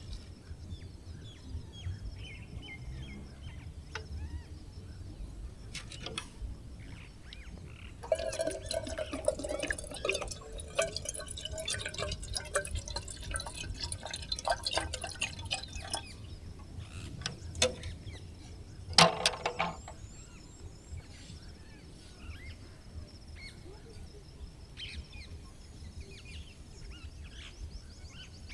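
Liquid being poured into a container for about eight seconds, with a bubbly, splashing texture, then a single sharp clink a few seconds later, under a steady low rumble.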